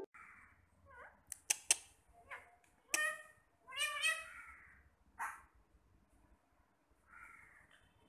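Ring-necked parakeets calling: short breathy rasps and two sharp clicks, then a few harsh pitched squawks in the middle.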